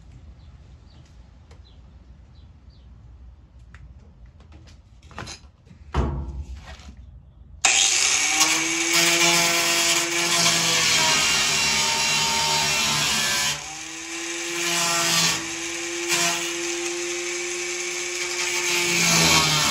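An electric angle grinder spins up about a third of the way in and runs with a steady motor whine over a loud hiss, easing off briefly partway through before picking up again. Before it starts there are a few quiet clicks and a thump.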